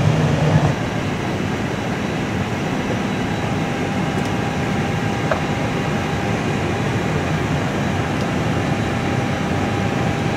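Steady rushing air and hum of an airliner cockpit's air conditioning while the aircraft is parked, with a faint steady tone and a single small click a little after five seconds in.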